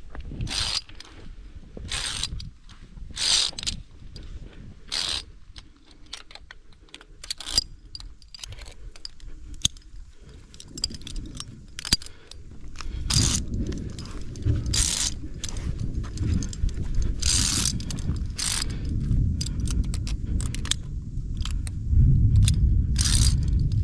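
Via ferrata lanyard carabiners (Edelrid Cable Kit Lite) clinking and scraping on the steel safety cable, in many short metallic clicks. A low rumble joins about halfway through and grows louder near the end.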